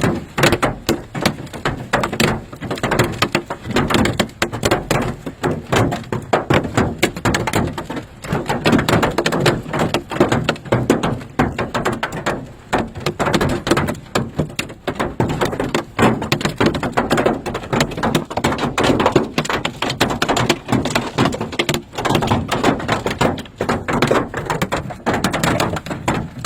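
Large hail, some of it golf-ball size, hammering the roof and body of an SUV as heard from inside the cabin: a dense, unbroken clatter of impacts with frequent louder cracks. These are hailstones big enough to dent the body panels and break the headlight.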